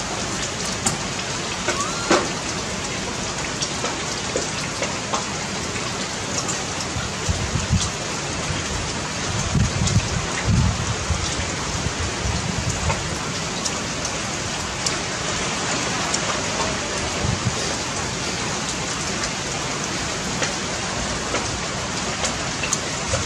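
Steady hiss of rain falling, with a few low rumbles about seven to eleven seconds in.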